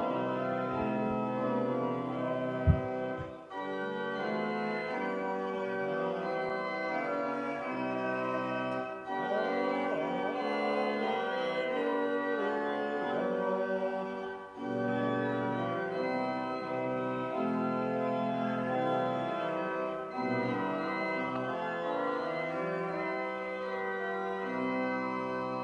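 Organ playing slow, sustained chords that change every second or two. A sharp knock sounds about three seconds in.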